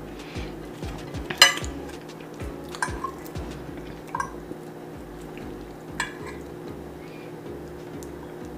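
Cutlery clinking against a plate: a handful of separate sharp clinks, the loudest about one and a half seconds in, others around three, four and six seconds in.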